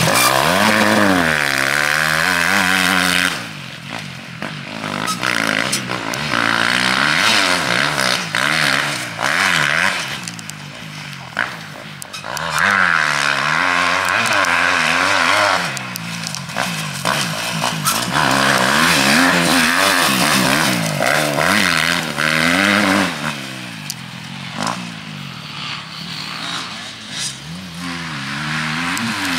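Motocross dirt bike engine revving up and dropping back over and over as the rider accelerates, shifts and backs off around the track, with stretches of loud rushing noise.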